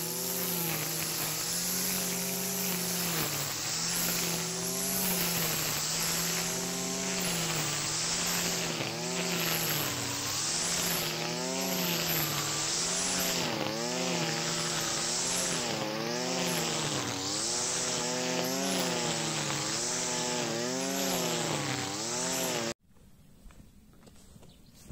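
Stihl FS 460 two-stroke brushcutter running at high revs while cutting tall, wet grass, its pitch dipping and recovering with each swing under load, about once a second. The engine sound cuts off abruptly near the end.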